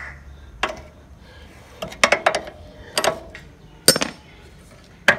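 Steel wrench clicking and clinking on a motorcycle's rear axle nut as it is worked loose: a run of sharp metal clinks, some ringing briefly, coming irregularly about once a second.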